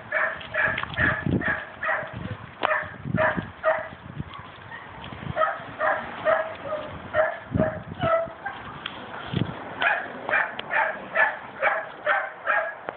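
A dog barking over and over in quick short barks, about three a second, with a brief pause about four seconds in.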